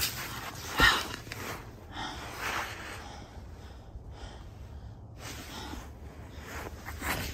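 A person breathing hard after running, a few heavy breaths spaced out, the loudest about a second in.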